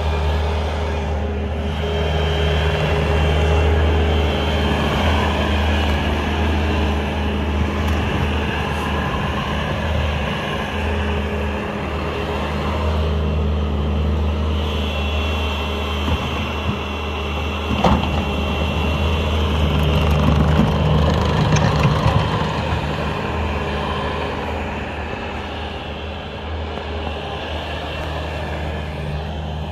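Bobcat compact track loader's diesel engine running steadily as it clears snow, with a sharp knock about 18 seconds in and a few clanks a few seconds later.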